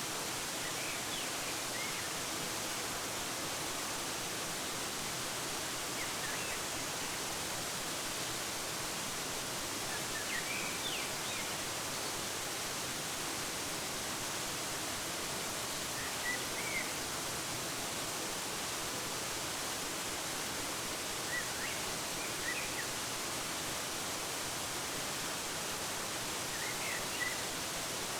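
Steady rushing of a waterfall, with short high bird chirps in little clusters every five seconds or so; the chirp near the end is the loudest.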